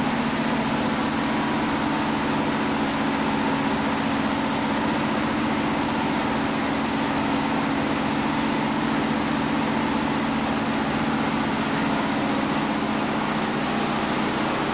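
A machine running steadily and loudly: a constant low hum with a hiss over it, unchanging throughout.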